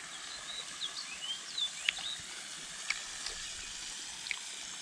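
Bacon frying in a pan: a steady sizzle with sharp pops of spitting fat about two, three and four seconds in. A run of short, high chirps sounds over it in the first second and a half.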